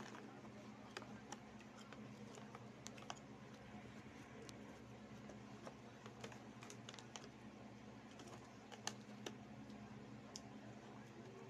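Crunchy Chick Boy corn snacks being chewed and their plastic bag handled: faint, irregular crisp clicks and crackles scattered throughout, over a steady low hum.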